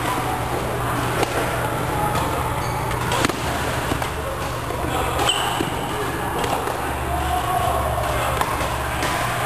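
Badminton racquets striking a shuttlecock in a doubles rally: sharp cracks at irregular intervals, over a steady low hum and background voices.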